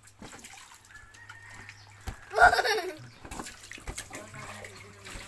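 Water splashing and lapping in an inflatable backyard pool as a beach ball is batted about. About two seconds in, a short, loud splash comes with a brief cry from a voice.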